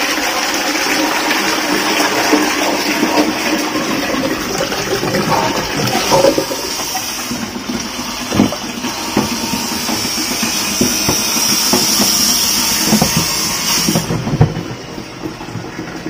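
Newly fitted wall-mounted plastic flush cistern flushing on test: water rushing and hissing steadily, then cutting off suddenly about two seconds before the end.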